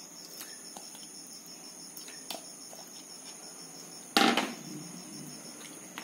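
Crickets chirping steadily in the background while raw chicken pieces are dropped into batter with a few soft clicks. About four seconds in comes a single loud knock of kitchenware, followed by quieter handling of the bowl and spoon.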